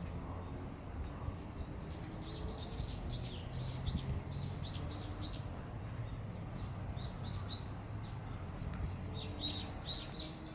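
Small bird chirping in quick runs of short, high, falling notes, three runs in all, over a low steady hum.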